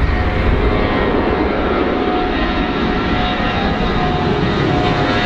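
Engines of a four-engine Airbus A340 at takeoff thrust as it climbs out overhead: a steady rush of jet noise with a faint steady whine from the fans.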